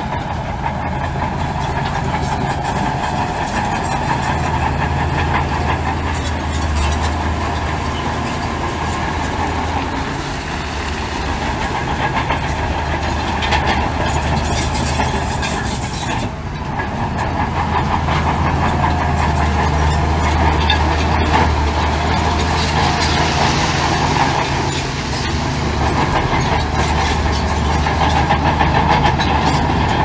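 Heavy diesel earthmoving machinery running under load: a steady low engine drone over a dense metallic clatter, with a brief drop about sixteen seconds in.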